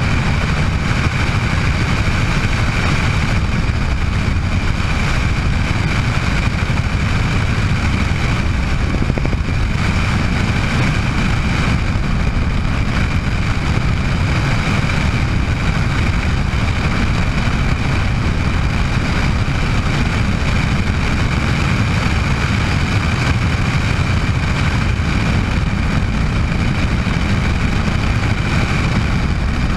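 Steady in-flight noise of a Bell 206 JetRanger helicopter: the rotor and Allison 250 turboshaft engine running at constant power. A deep rumble is overlaid by a steady high whine.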